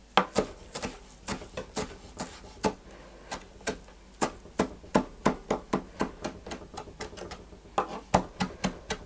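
Kitchen knife finely chopping beet greens on a wooden cutting board: a steady run of sharp knocks of the blade on the board, about two or three a second, quickening near the end.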